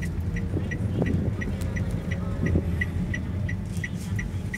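Inside a car's cabin: a steady low engine and road rumble, with the turn-signal indicator ticking evenly about three times a second while the car turns a corner.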